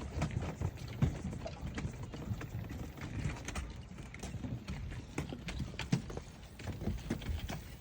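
Irregular light clicks and knocks over a low background rumble.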